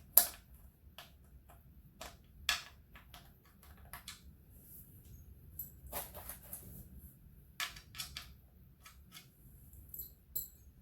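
Irregular sharp clicks and knocks of hand tools and metal parts being handled while taking a motorcycle apart, the loudest one just after the start.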